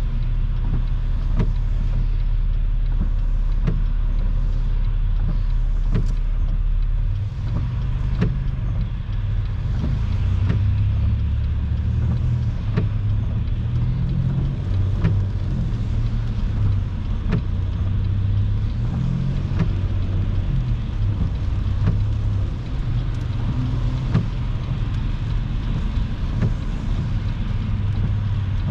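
Car cabin road noise at highway speed: a steady low rumble of tyres and engine, with faint short clicks every second or two.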